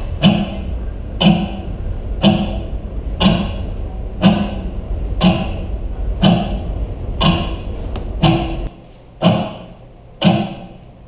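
A steady knock repeating about once a second, each with a short ringing tail. A low hum underneath stops about eight and a half seconds in.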